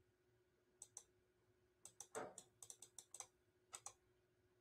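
Faint computer mouse clicks, many in quick pairs, about a dozen spread through four seconds while marks are drawn on a slide. A softer, slightly longer sound comes about two seconds in.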